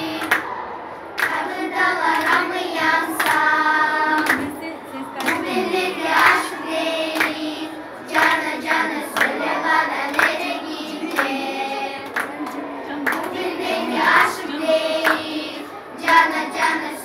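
A group of children singing together, with hands clapping along.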